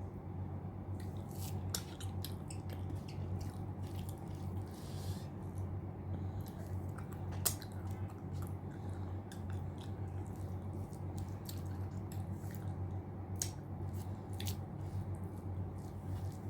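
Close-miked chewing of mutton curry and rice: irregular short wet mouth clicks over a steady low hum.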